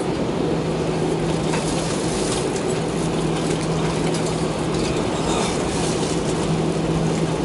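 Airliner cabin noise while taxiing: the jet engines and airflow make a steady drone with a constant low hum underneath, heard from inside the cabin.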